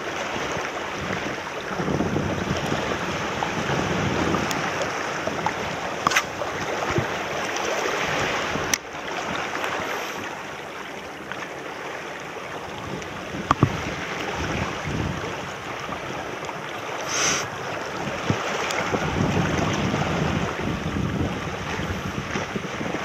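Small waves washing over rocks in shallow water, the sound swelling and easing every few seconds, with wind on the microphone.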